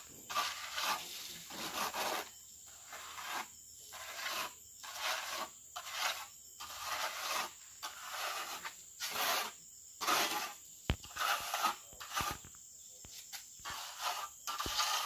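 Steel trowel scraping and spreading wet cement plaster over a bare patch of a concrete wall, in repeated short strokes about one or two a second, with a few sharp clicks of the trowel near the end.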